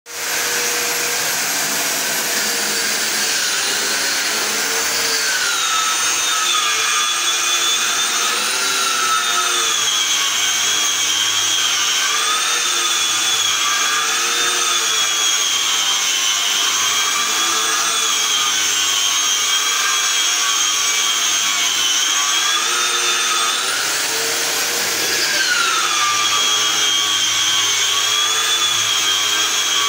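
Electric wall sander with a round pad running steadily against plaster, its motor whine wavering in pitch as it is pressed and moved over the wall, then dropping sharply about 25 seconds in.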